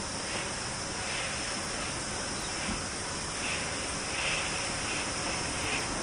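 Distant steam locomotive chuffing as it approaches, soft exhaust beats about every three-quarters of a second growing louder, over a steady high hiss.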